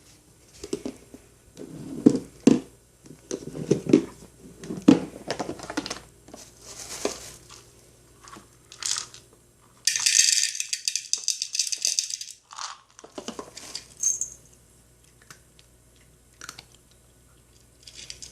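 Dry cat food rattling into a bowl for about two and a half seconds, after a series of knocks and thumps of handling.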